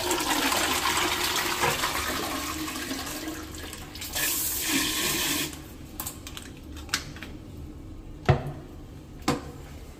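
Toilet flushing: a loud rush of water into the bowl that slowly fades, then a second gurgling surge about four seconds in. Two short sharp knocks near the end.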